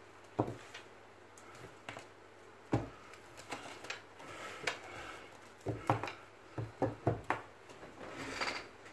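Irregular taps and knocks on a wooden desktop from a red lory hopping and playing on it, bunched together in the second half, with a brief scratchy rustle near the end.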